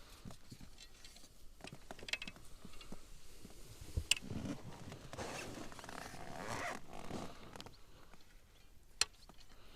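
Fishing tackle being handled in a boat: line and gear scraping and rustling, with two sharp knocks about four seconds and nine seconds in.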